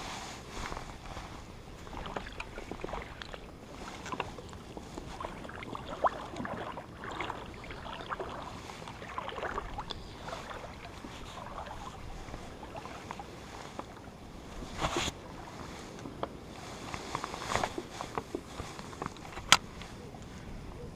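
Water lapping and sloshing, with scattered knocks and clicks; a sharp click near the end is the loudest.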